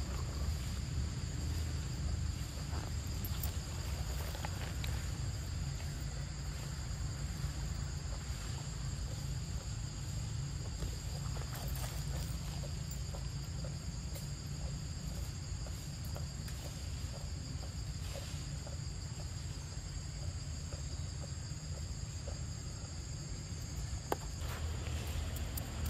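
Insects droning in two steady high-pitched tones, over a low rumble, with scattered light clicks and rustles of dry leaves.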